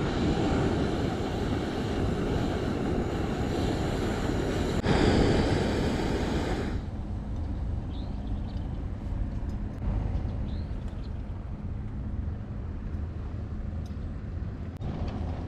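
Gas cartridge burner hissing under a kettle of water that has come to the boil, then cut off sharply about seven seconds in as the burner is shut off. A low rumble of wind on the microphone runs underneath throughout.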